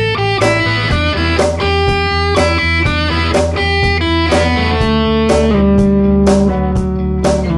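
Background music led by electric guitar over a bass line, with a steady beat.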